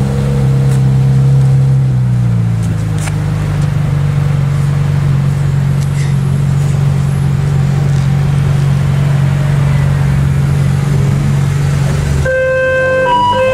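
Ferrari 458 Italia's 4.5-litre V8 idling steadily, its idle settling a little lower about two seconds in. Near the end a horn-like tone sounds in several short toots.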